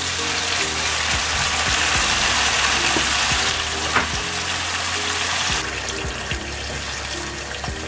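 Tomato-and-onion base sizzling in a non-stick wok, a wooden spoon scraping and knocking against the pan. Hot water is then poured in from a kettle, and the sizzle fades.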